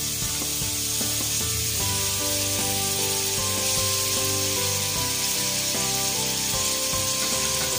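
Butter sizzling steadily as it melts and foams in a frying pan, with background music playing.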